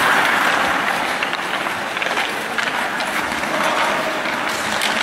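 Ice hockey rink sound during play: a steady noise of skates scraping and carving on the ice, with a few sharp clicks of sticks on the puck.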